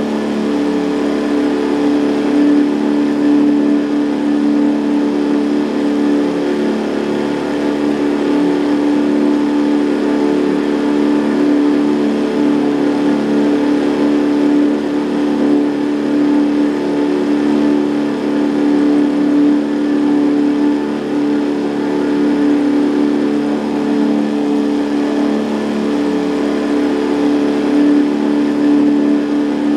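Boat's outboard motor running at a steady speed, an even drone that holds one pitch throughout.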